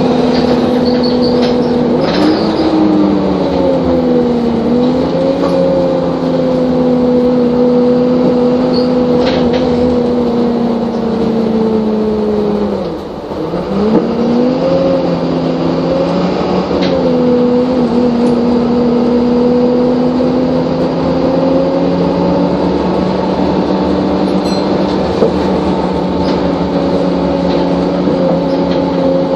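Optare Solo bus engine and driveline running, heard from inside the passenger saloon, with a steady whining tone. The pitch rises about two seconds in and eases back. About halfway through it drops sharply with a brief dip in loudness, then climbs again and holds steady as the bus drives on.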